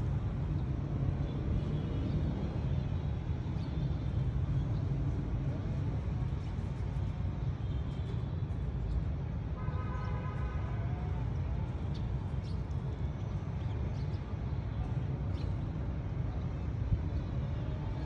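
Steady low rumble of town traffic, with faint, scattered short chirps of sparrows. A brief distant tonal call or voice sounds about ten seconds in.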